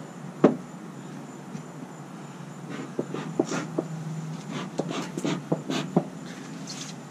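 A knock about half a second in, then a hand-pumped bee smoker's bellows working in a quick run of short puffs of air over a few seconds.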